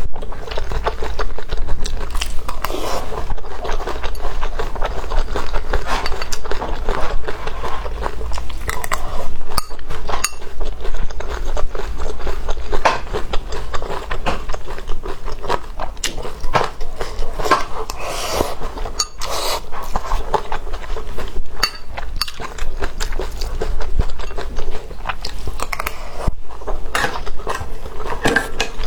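Close-miked eating: chewing and biting mixed with many small clicks of cutlery against a bowl and dish, in a dense, irregular run.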